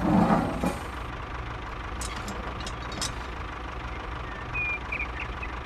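An engine idling steadily with a low hum, with a short clatter right at the start as a plastic toy trailer is handled and a couple of sharp clicks a few seconds in.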